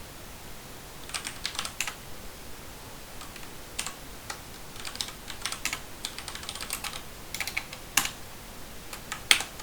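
Computer keyboard keys pressed in short, irregular clusters of clicks, with gaps of about a second between them and a louder pair of strokes near the end.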